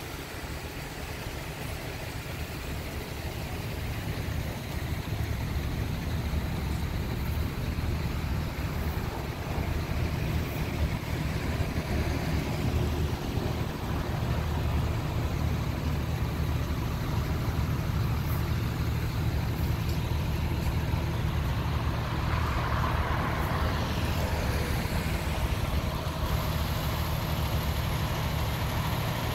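Engine of a parked emergency vehicle idling with a steady low rumble, growing louder over the first few seconds.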